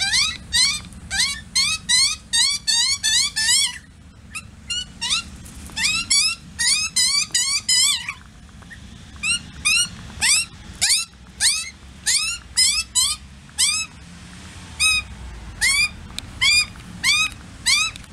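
Australian magpie juvenile begging: a fast string of short, squealing calls that rise then fall, repeated in runs, with a brief lull about eight seconds in.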